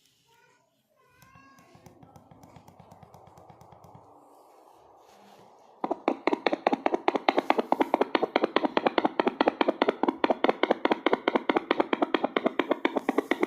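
Handheld fetal Doppler monitor's loudspeaker giving a faint, fast rhythmic pulsing, which about six seconds in turns abruptly loud into a fast, regular galloping heartbeat-like beat.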